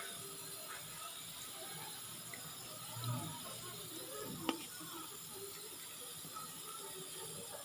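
A metal ladle stirring and scooping chicken soup: soft sloshing of broth, with a low bump about three seconds in and one sharp clink of the ladle against the pot about four and a half seconds in.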